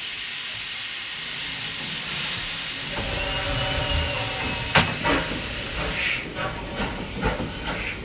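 Small 0-4-0 steam locomotive hissing steam steadily, with a louder swell of hiss about two seconds in. From about three seconds a low rumble sets in, with a sharp clank near five seconds and irregular knocks after it as the locomotive works along the siding.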